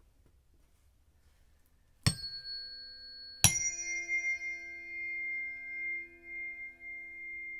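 Tuning forks struck twice, about two seconds in and again about a second and a half later. Each strike leaves steady pure tones, some high and some low, ringing on and gently wavering.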